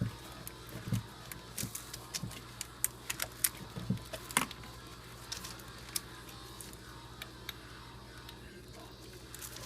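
Spark plug wire boots and their terminals being handled and pushed on by hand: a scatter of small clicks and taps, most in the first four or five seconds and only a few after, over a steady low hum.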